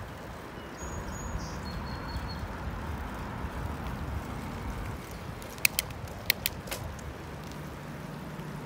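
Bicycle rolling along a paved trail, a steady low rumble. A little past halfway comes a quick run of about five sharp clicks.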